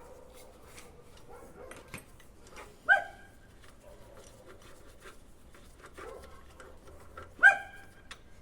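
A dog barks twice, once about three seconds in and again near the end, over faint scattered clicks and knocks.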